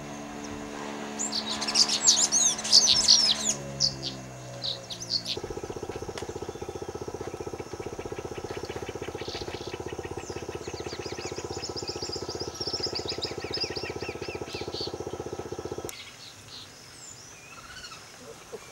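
Wild birds calling and chirping: a burst of loud, high calls in the first few seconds, then softer chirps. Under them runs a steady low hum that drops in pitch after about four seconds, turns into a rapid buzz, and cuts off abruptly at about sixteen seconds.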